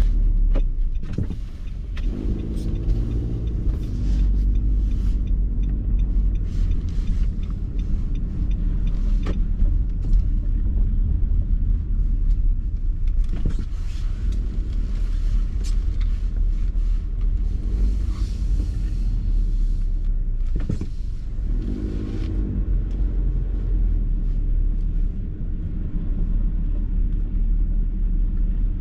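Car interior noise: a steady low rumble of engine and road heard from inside the cabin, with a brief wavering tone twice, near the start and about three-quarters of the way through.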